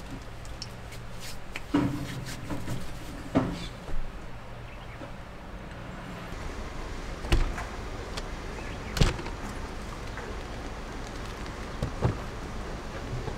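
About six separate knocks and clunks, a second or more apart, of doors and things being handled; the loudest comes about nine seconds in. A low steady hum lies under the first half, then gives way to open outdoor noise.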